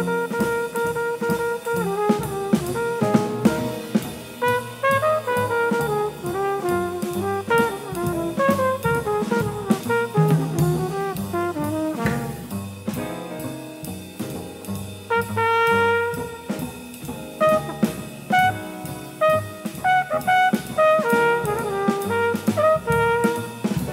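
Small jazz combo playing swing: a trumpet carries the lead line with quick runs, over bass, piano and a drum kit keeping time with steady cymbal and drum strokes.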